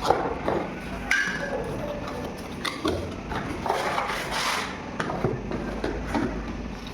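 Ceiling fan parts being handled: scattered clicks and knocks with bursts of rustling, several sharper clicks spread through.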